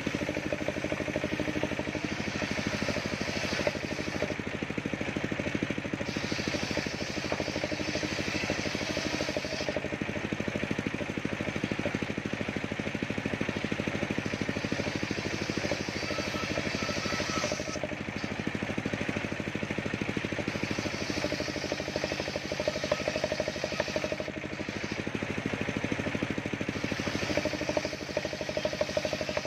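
Engine-driven circular saw bench running steadily while its blade rips waru (sea hibiscus) wood into boards; the cutting noise swells for a few seconds at a time as each piece is fed through, then eases back to the motor's running sound.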